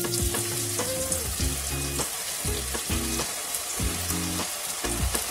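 Breaded Maggi pakoda balls sizzling and bubbling steadily as they deep-fry in hot oil in a kadhai, with more balls being dropped in. Soft background music with repeating low notes plays underneath.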